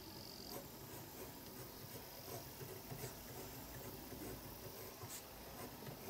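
Zebra Sarasa gel pen writing on paper: faint, irregular scratching of short pen strokes as kanji are written by hand.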